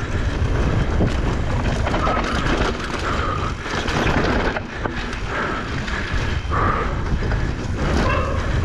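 Mountain e-bike descending a rough dirt and rock trail at race speed: steady wind buffeting on the camera microphone, tyres rumbling over the dirt, and the bike rattling over bumps, with several short whines.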